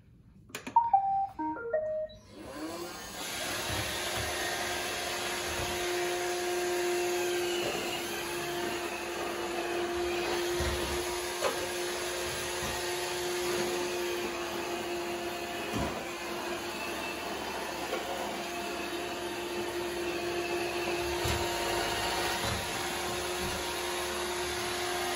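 iRobot Roomba 614 robot vacuum starting a cleaning run: a button press and a brief run of short tones, then its suction motor and brushes run with a steady hum. A few short knocks come as it bumps into things while it cleans a tile floor and a bath mat.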